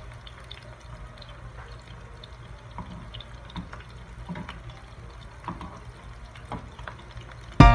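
Crumb-coated chicken strips shallow-frying in hot oil in a pan: a steady sizzle with scattered pops and crackles.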